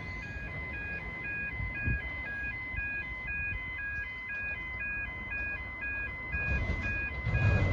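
Railway level-crossing warning bells ringing in a steady, rapid alternating chime, a train approaching along the line. A low rumble grows near the end.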